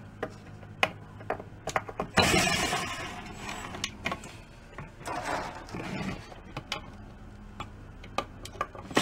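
Power screwdriver spinning slotted lug screws out of a wooden snare drum shell, in two short runs about two and five seconds in. Sharp metal clicks of screws and hardware being handled come in between.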